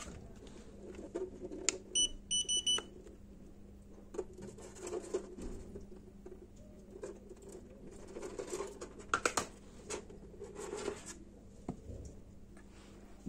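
A handheld pet microchip scanner gives a quick run of about four short high beeps, the sign that it has read an FDX-B microchip. Scattered handling rustles and clicks follow.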